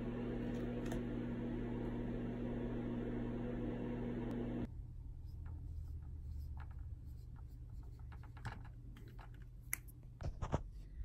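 A steady low hum with a held tone runs for the first four and a half seconds and stops abruptly. Then a marker writes on a whiteboard: short scratchy strokes and light taps, with a few louder clicks near the end.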